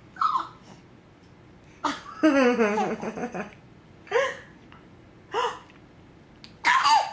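A baby's short, breathy, hiccup-like laughs: separate bursts a second or so apart, with one longer wavering vocal sound a couple of seconds in.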